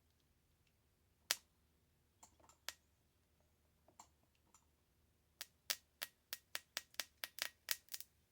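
Sharp clicks from small metal tools at work on the slot-car chassis: a few scattered ones, then a quick run of them, about three or four a second, from about five seconds in.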